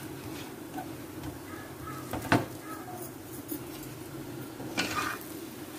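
Spatula working a paratha on an iron tawa over a steady low kitchen hum, with one sharp clack of the spatula on the tawa a little over two seconds in and a short scraping rustle near the end.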